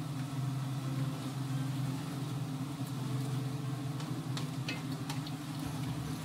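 Wooden spoon stirring liquid stew in a cast-iron skillet, with a few light knocks against the pan about four and a half seconds in, over a steady low hum.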